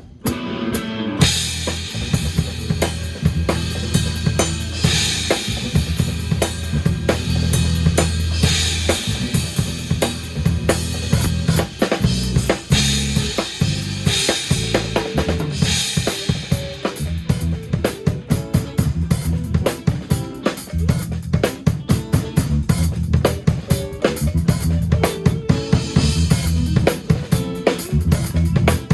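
Live band playing an instrumental funk-fusion groove, led by a drum kit: kick, snare and cymbals over a sustained bass line. A few hits open it, and the full band comes in about a second in.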